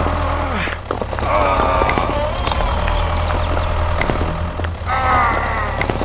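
Tractor engine running with a steady low rumble, with a wavering high-pitched call heard twice over it, about a second in and near the end.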